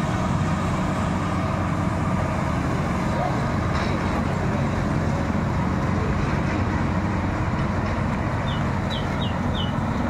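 Marksan K-BOS MS1200 combine harvester running steadily as it harvests rice. Four short high chirps come near the end.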